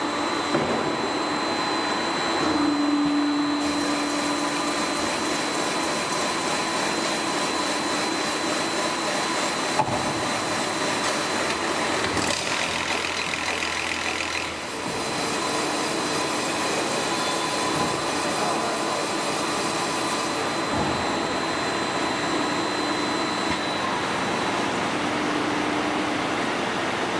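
LPG cylinder trimming and polishing machine running, a steady mechanical whir with a thin high whine as its head spins on the cylinder. The whine fades out near the end.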